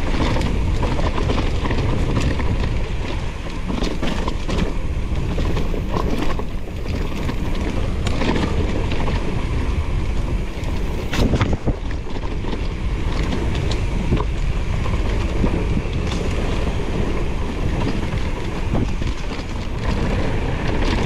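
Mountain bike rolling over a rough trail, heard through an action camera's microphone: a continuous rush of wind and tyre noise with frequent knocks and rattles from the bike, one sharper knock about halfway through.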